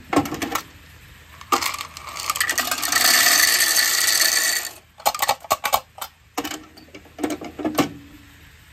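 Shelled corn kernels poured into the metal test cell of an old grain moisture tester, rattling for about three seconds, with scattered clicks and knocks before and after.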